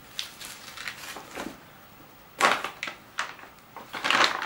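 Plastic parts bags crinkling and rustling in the hands in irregular crackles, loudest about halfway through and again near the end.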